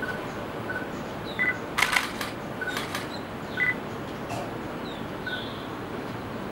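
Short bird call notes repeating every second or so, with a few faint higher chirps, over a steady hiss of background noise; a few sharp clicks stand out around two and three seconds in.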